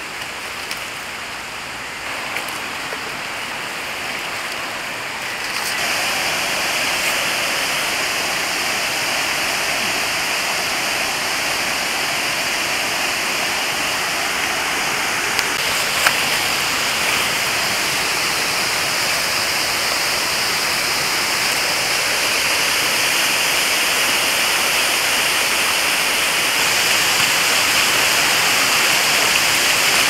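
Steady rush of a shallow jungle stream running over rocks, which grows louder about five seconds in. One short knock about halfway through.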